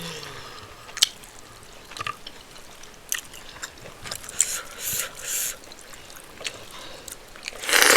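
Close-up eating sounds: wet chewing and mouth smacking of rice and spinach stew, with scattered sharp clicks. A loud noisy rush comes near the end, such as a slurp or a sharp breath.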